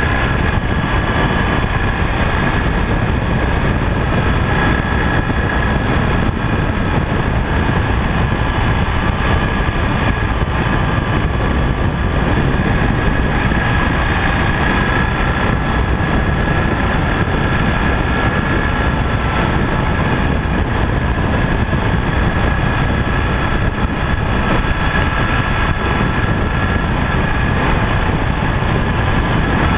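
Onboard sound of a BMW R1200GS LC's liquid-cooled boxer twin under way: a steady engine drone over a heavy low rumble of wind and road noise, holding an even pitch throughout.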